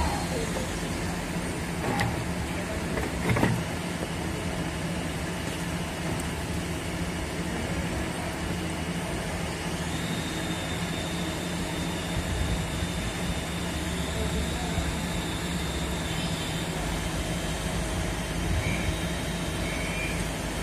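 Steady mechanical background hum and rumble of a workshop, with two sharp metal clicks about two and three and a half seconds in as the cast-iron cylinder barrel is worked down over the compressor piston.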